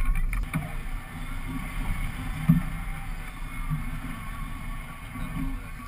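Low steady rumble aboard a twin-outboard fishing boat, mixed with wind on the microphone, with a single sharp knock about two and a half seconds in.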